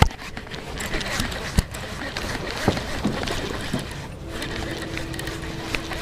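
Irregular clicks and knocks from fishing gear against an aluminium jon boat. A steady electric trolling-motor hum joins about four seconds in.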